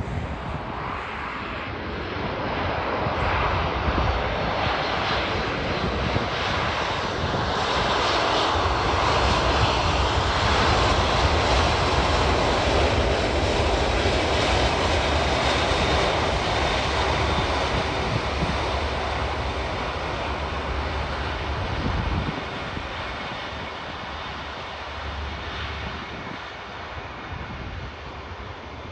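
Airbus A320 airliner's twin jet engines running at high power as it rolls along the runway. The roar builds to a peak as the jet passes, then fades as it moves away.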